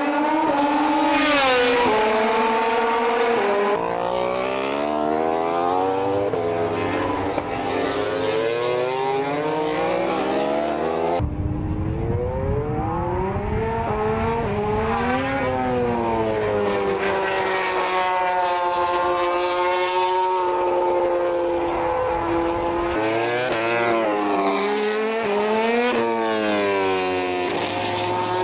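Honda RC213V MotoGP bike's V4 engine at racing revs, its pitch climbing in steps through upshifts and falling on braking and downshifts as the bike comes past. The sound changes abruptly about 4, 11 and 23 seconds in, where the footage cuts to another pass.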